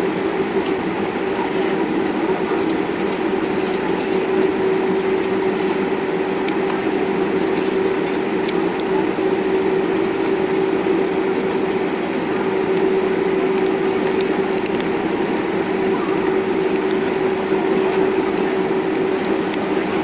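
Cabin noise inside a Boeing 747-400 taxiing: a steady drone of its four jet engines at taxi power and the cabin air, with a held humming tone.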